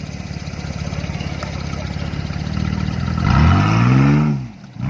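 Two-door Jeep Wrangler Rubicon's engine running at low revs as it crawls through deep mud ruts. About three seconds in it is revved hard, the pitch rising and then falling back. A second rev starts at the very end.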